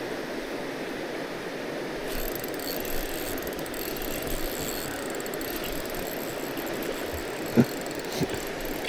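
Steady rushing of water falling over a waterfall.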